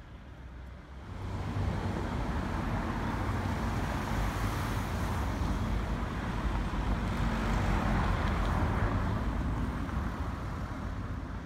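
Motor traffic driving past close by on a street: engine and tyre noise that swells up about a second in, stays loud through the middle and fades near the end.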